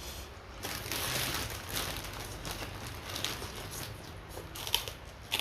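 A person eating: chewing and crunching food, with a few short sharp clicks near the end.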